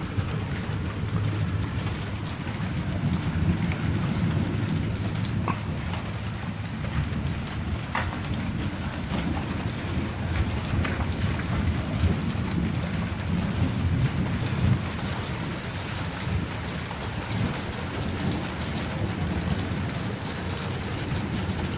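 Rain falling steadily in a thunderstorm, with a continuous low rumble underneath and a few sharp drop hits.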